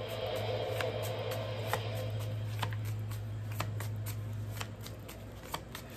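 A deck of tarot cards being shuffled by hand, a run of quick, irregular snaps and taps of the cards, to draw the next card.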